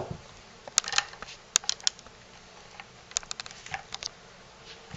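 Airsoft M4's stock and battery being handled: a dozen or so sharp plastic clicks and taps, some in quick clusters, as the battery is pushed into the stock.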